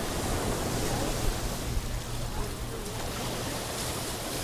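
Sea surf washing onto a beach: a steady rushing noise.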